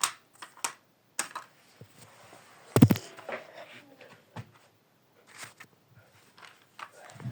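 Scattered light clicks and knocks of small objects being handled, with one louder knock about three seconds in.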